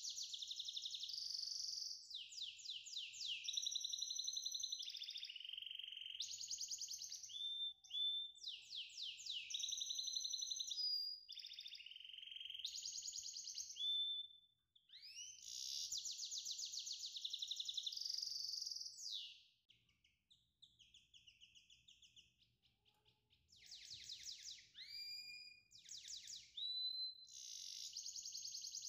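Songbird singing high-pitched, fast trills and whistled notes, some gliding up or down, with a quieter spell of a few seconds past the middle.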